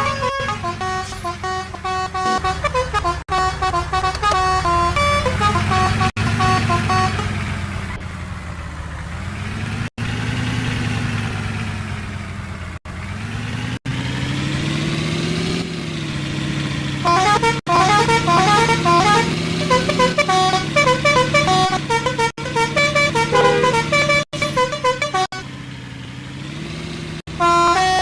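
Bus 'telolet' horns: multi-tone musical horns playing quick runs of notes as short tunes. Through a stretch in the middle the horns give way to a bus engine whose pitch rises and falls, and the sound has several abrupt breaks.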